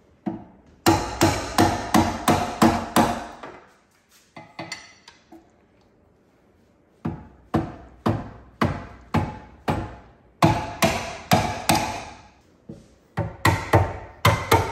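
Hammer striking a steel bar wedged behind a Porsche Boxster's clutch assembly, in runs of quick blows about three a second with a metallic ring, broken by short pauses and a few light taps; the last run comes faster. The blows are driving the bar to free the stuck clutch and flywheel.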